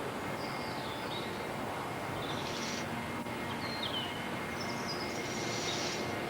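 Outdoor ambience: a few short bird chirps over a steady background of noise.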